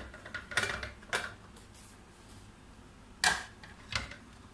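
Sharp metal knocks and clicks from a hand-operated metal falooda press as it is gripped and its plunger worked. There are about four knocks, the loudest about three seconds in.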